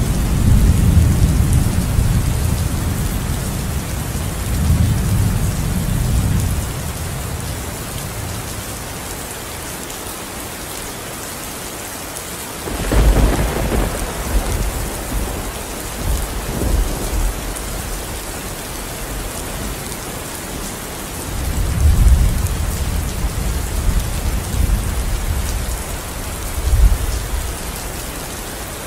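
Steady rain with thunder. A long low rumble rolls for the first six seconds or so, then fades to rain alone. About halfway through a sudden sharper thunderclap breaks in, and another long rumble rolls through the last quarter.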